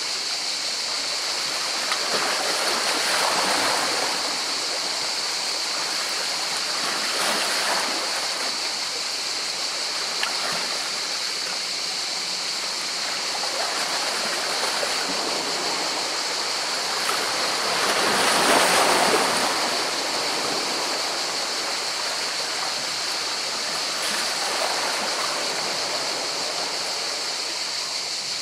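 Sea waves washing in among rocks: a steady rush of water that swells several times as waves come in, the biggest about two-thirds of the way through.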